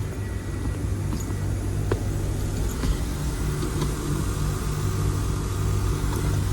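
Carrier 25VNA Infinity heat pump outdoor units running: a steady low mechanical hum, with a couple of light clicks about two and three seconds in.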